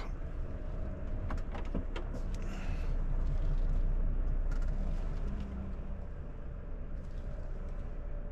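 Volvo FH460 truck's 13-litre six-cylinder diesel running at low revs as heard inside the cab, a steady low rumble that swells a little about three to four seconds in. A few faint clicks are heard about a second in.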